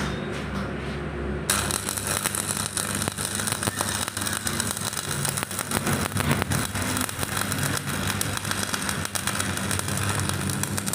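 Stick (arc) welding: the electrode arc crackles and sputters steadily as a steel hinge is welded onto a frame. A few short sputters come first, and the arc settles into its steady crackle about a second and a half in, over a steady low hum.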